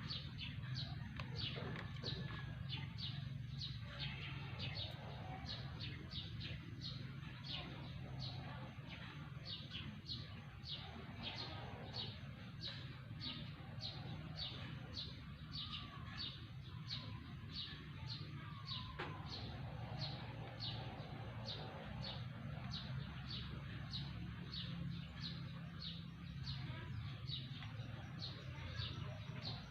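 A bird chirping over and over in an even rhythm, a little under two short high chirps a second, each falling quickly in pitch, over a low steady hum.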